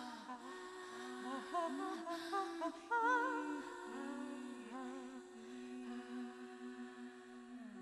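Wordless humming: a voice holds, slides and wavers in pitch over a steady low held note, then fades out at the very end.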